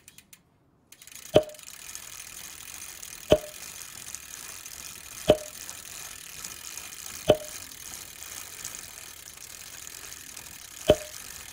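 Mechanical clicking sound effect: five sharp clicks, each with a short ring, about two seconds apart with a longer gap before the last, over a faint steady hiss.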